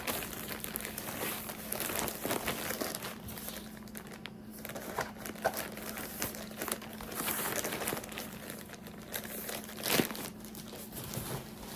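Packaging being crinkled and torn open by hand, an irregular run of crackling and rustling with a sharper snap about ten seconds in, over a faint steady hum.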